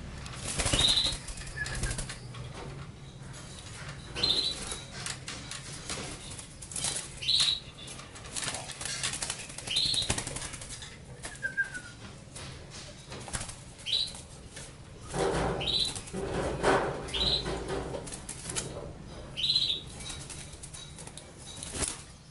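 A caged pied starling (jalak suren) flapping its wings and scrabbling about the cage, with about eight short, high chirps spread a few seconds apart. The bird is busiest about two thirds of the way through.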